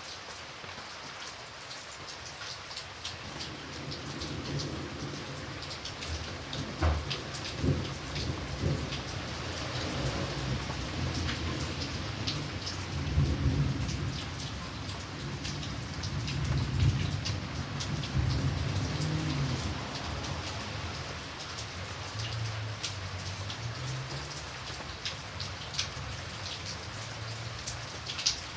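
Steady rain with a patter of single drops, and thunder: a low rolling rumble builds a few seconds in, with a sharp crack about seven seconds in, swells twice, and dies away in the last few seconds.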